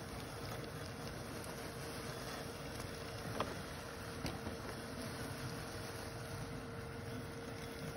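Husqvarna Automower 315 robotic lawn mower running, a steady quiet hum with a thin steady whine from its electric drive and blade motor, with a couple of faint clicks a little after three and four seconds in.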